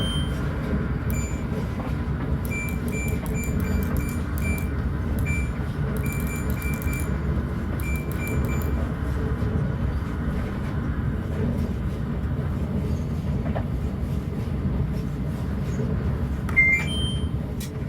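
Washing machine control panel beeping as its buttons are pressed to set the cycle: short high beeps, singly and in quick runs, over a steady low rumble. Near the end comes a rising two-note chime, then the sound cuts off.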